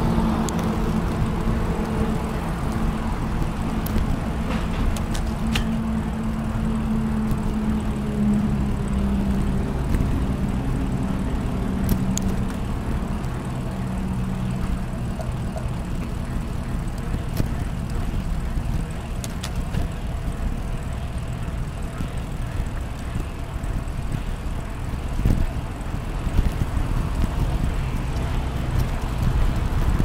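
Cycling ambience on a Brompton folding bicycle: a steady low rumble, with a motor vehicle's engine hum fading away over the first ten seconds or so and a few light clicks later on.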